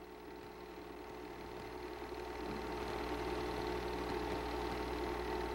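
Home-movie film projector running: a steady mechanical whir with a constant hum, growing louder over the first few seconds and then holding steady.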